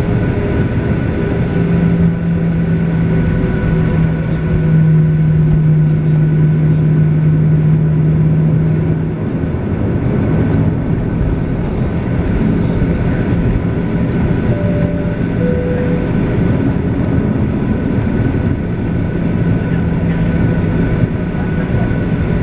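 Steady cabin noise inside a Boeing 737-800 on the ground before takeoff: a low rumble with a constant hum, stronger for several seconds near the start. A soft two-note falling chime sounds about fifteen seconds in.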